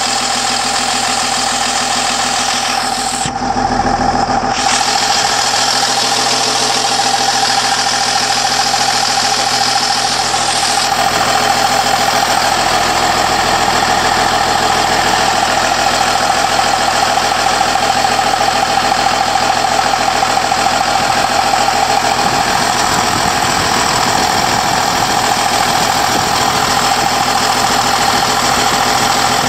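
Caterpillar 938H wheel loader's C6.6 diesel engine running steadily, heard close up in the open engine bay, with a steady whine over the engine note. It gets a little louder about three and a half seconds in.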